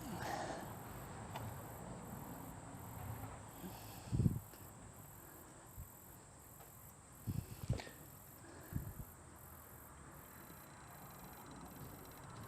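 Faint outdoor background with a regular high pulsing chirp like crickets, broken by a few dull low thumps, once about four seconds in and a couple more around seven to nine seconds in, from the casting gear being handled during an aluminium pour.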